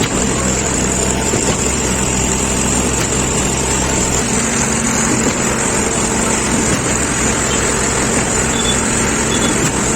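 Concrete mixing and pumping machine running steadily under its engine, a constant mechanical drone with a hiss over it.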